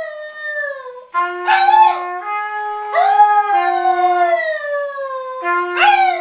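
A Shiba Inu howling along with a trumpet. The trumpet holds steady notes while the dog's howls rise and fall over them, with a long, slowly falling howl from about three seconds in.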